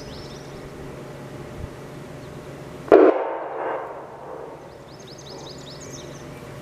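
Outdoor background with faint high chirps, broken about three seconds in by a single sudden loud bang that dies away within about a second.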